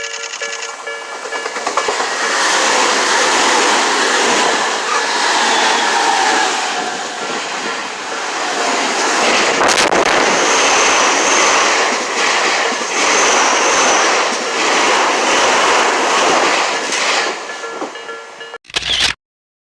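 A Tobu Tojo Line train passing a Japanese level crossing, its wheels clattering rhythmically over the rail joints. The crossing's warning bell rings at the start and again near the end, before the sound cuts off abruptly.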